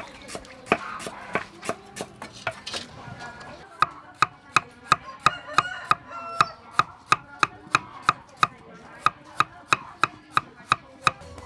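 Cleaver chopping on a wooden cutting board, slicing a carrot into rounds. A few scattered chops at first, then from about four seconds in a steady run of about three chops a second.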